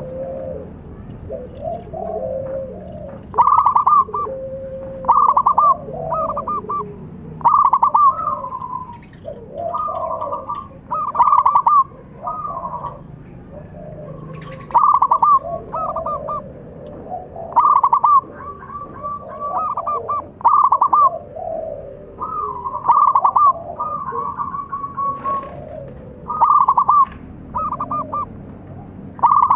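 Zebra dove cooing: loud phrases of rapid stuttering notes repeated about every one and a half to two seconds, with softer, lower coos between them.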